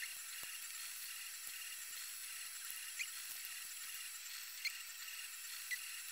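Faint short high squeaks, three or four in the second half, from a screwdriver prying apart a 3D-printed plastic mould around a cured silicone-sealant tyre, over a steady hiss.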